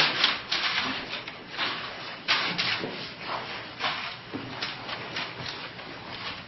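A series of short rubbing strokes, about a dozen, irregularly spaced.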